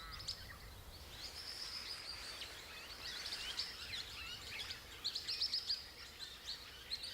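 Small birds chirping and twittering, with short high calls coming in quick clusters of notes, over a faint steady hiss.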